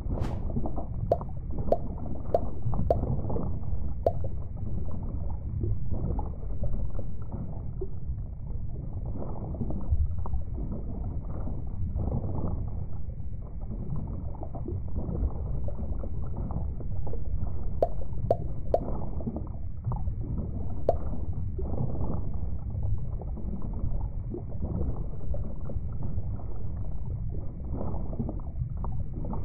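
Low, muffled underwater bubbling and gurgling that runs on steadily, with scattered sharp little clicks and pops, a few near the start and again about two-thirds of the way through.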